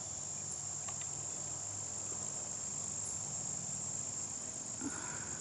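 A steady, high-pitched chorus of insects trilling without a break, with a few faint clicks.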